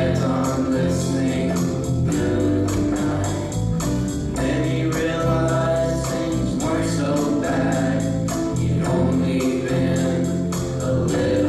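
A live band playing a song with several voices singing together over a steady beat and bass line.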